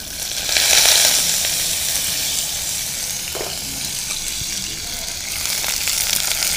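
Whole small brinjals (eggplants) sizzling in a little hot oil in a pan. The sizzle swells loud about half a second in as the lid is lifted off, then settles to a steady frying hiss.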